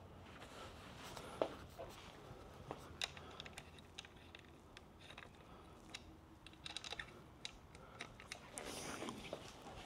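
Faint, scattered clicks and taps of hand tools and metal parts as a motorcycle fork tube is positioned in its triple clamps and the clamp bolts are snugged up, with a small flurry of clicks about two thirds of the way in and a soft rustle near the end.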